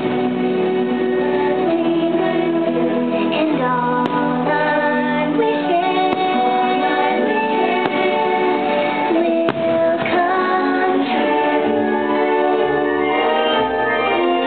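Fireworks-show soundtrack: sung music with a female voice and a choir over held instrumental chords. A few sharp pops are heard under it.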